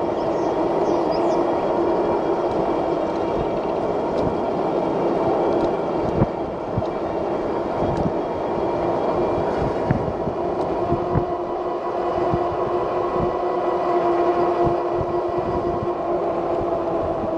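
Electric bike's hub motor whining steadily while riding, over tyre and road noise, with low thumps from bumps and wind on the mounted microphone.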